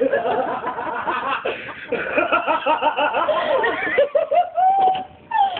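People laughing hard, several voices of rapid, repeated laughter, easing off briefly near the end.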